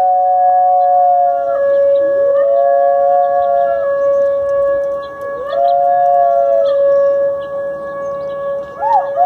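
A dog howling repeatedly, each howl rising and then held for about a second and a half, over a steady sustained tone.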